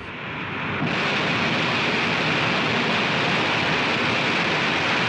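Soyuz rocket's engines firing on the launch pad at ignition, building to full thrust just before liftoff: a loud rushing roar that swells over the first second and then holds steady.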